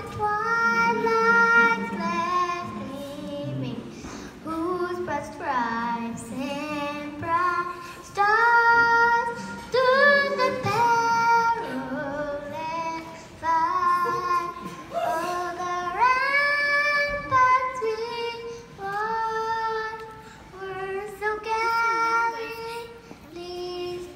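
A young boy singing a national anthem solo and unaccompanied into a handheld microphone, in held notes and sliding phrases with short breaths between them.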